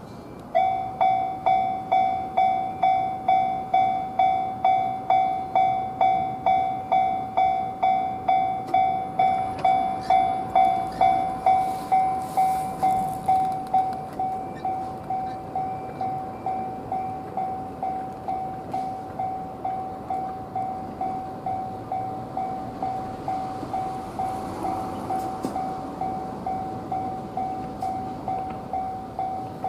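Japanese railway level-crossing warning bell ringing in a steady, even beat of about two strokes a second, starting suddenly about half a second in. It drops to a lower level about halfway through and keeps ringing.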